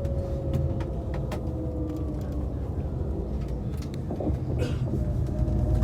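Steady low rumble inside a moving passenger vehicle, with a faint whine slowly falling in pitch and scattered short clicks.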